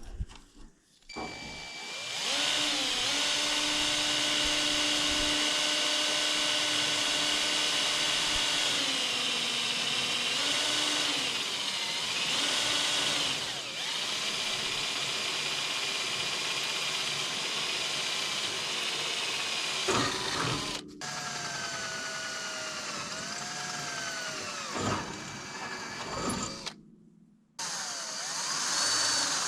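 Cordless drill pre-drilling screw holes through steel roofing panels: a steady motor whine whose pitch sags and recovers as the bit bites, with a couple of short breaks near the end.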